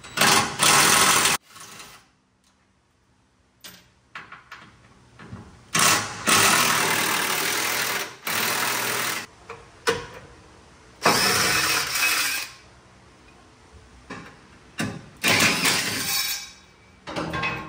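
DeWalt cordless impact wrench with a 12 mm socket on an extension, run in four bursts of one to three seconds each while backing out cross-member bolts; the longest burst is the second.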